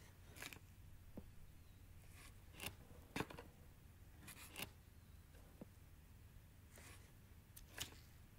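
Kitchen knife cutting a peeled raw potato into chunks held in the hand: short cuts about a second apart, the loudest a little after three seconds in.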